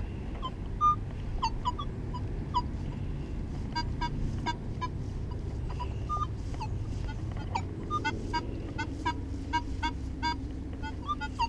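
Legend metal detector giving many short beeps in quick succession, mostly at one mid pitch with a few higher ones, as the coil sweeps over buried metal targets. A low steady rumble runs underneath.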